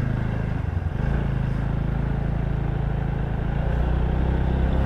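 Small two-wheeler engine running at low road speed as the bike pulls away, with a brief dip in the engine note about a second in before it settles to a steady pitch.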